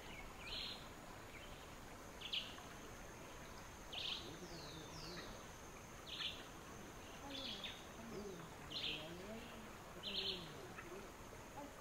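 Birds in the trees calling with short, bright chirps repeated every second or two, a couple of them falling sweeps, over a faint steady high-pitched tone.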